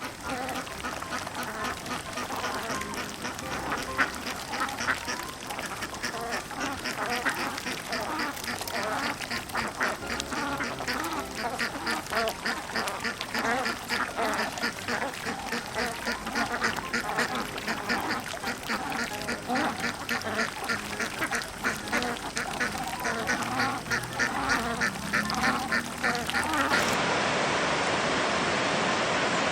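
A group of ducks quacking, many rapid overlapping quacks in quick succession. Near the end it cuts suddenly to a steady rushing noise.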